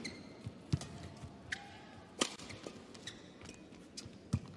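Badminton rally: a few sharp racket strikes on the shuttlecock, spaced a second or two apart, with brief squeaks of shoes on the court mat between them.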